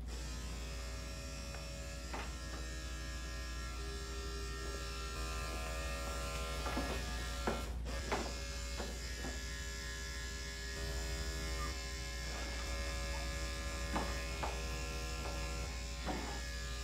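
Electric dog grooming clippers running with a steady buzzing hum as they shave a Yorkie puppy's matted coat. A few short, sharper sounds rise over the hum about halfway through and again near the end.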